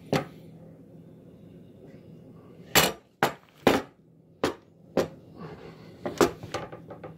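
Sharp knocks and clacks of a Bren light machine gun's lower, its wooden butt and metal trigger group, being handled and bumped on a wooden table. About eight irregular knocks, one at the start and the rest from about three seconds in.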